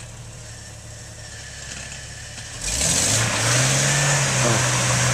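Lifted Jeep Wrangler's engine idling low, then about two and a half seconds in revving up sharply and holding the higher speed under load as it crawls up over boulders. A loud hiss comes in with the revving.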